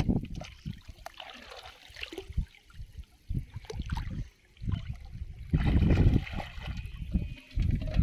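Water sloshing and splashing around a person wading waist-deep in murky floodwater, in irregular surges that grow louder for a couple of seconds past the middle.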